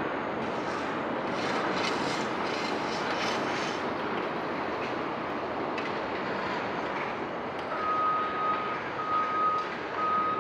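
Chicago 'L' elevated train running on the steel structure overhead: a steady rumble of wheels on rail, with wheel clatter in the first few seconds. Near the end an electronic beeper sounds three times, one longer beep and two shorter ones at the same pitch.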